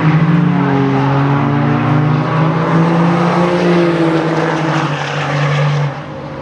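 Diesel pickup trucks running hard down a drag strip, their engines holding a loud, steady, deep note that rises slightly in pitch. The sound drops away suddenly about six seconds in.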